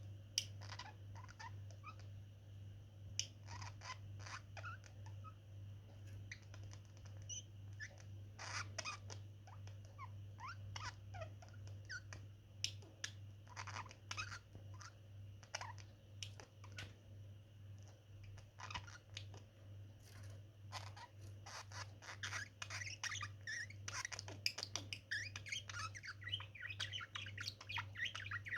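Two budgerigars chattering with short chirps, squawks and clicks as they touch beaks, the chirping growing busier and denser in the last third.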